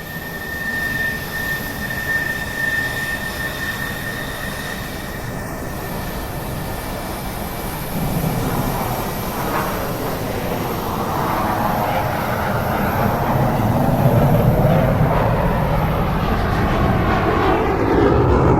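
An airplane's engine droning low overhead, growing louder from about eight seconds in, its pitch sweeping as it passes close by.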